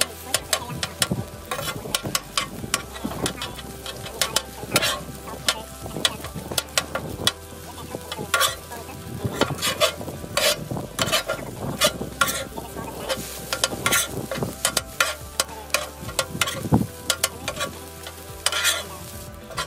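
A metal spatula scraping and clacking on the steel top of a Blackstone 22-inch griddle as it turns and chops fried rice with egg, the food sizzling underneath. The strokes come in quick, irregular runs of sharp clacks.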